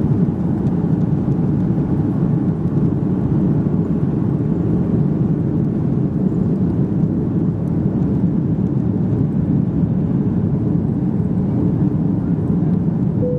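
Steady jet-engine and airflow noise inside the passenger cabin of an Airbus A330-243, whose Rolls-Royce Trent 700 engines drive a constant low rumble.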